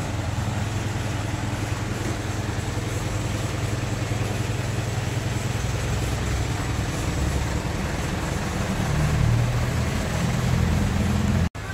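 Street traffic noise: a steady rumble of vehicle engines, growing a little louder about nine seconds in.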